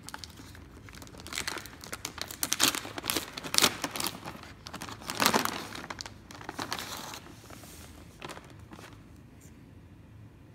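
Plastic wrapper of a Hostess Donettes snack package crinkling and tearing as it is opened by hand. The rustle comes in a run of sharp crackles, loudest in the middle, and thins out near the end.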